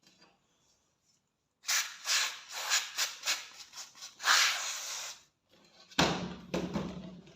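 Rough scraping strokes in a rapid series, about two or three a second, then a pause and one more longer scrape near the end.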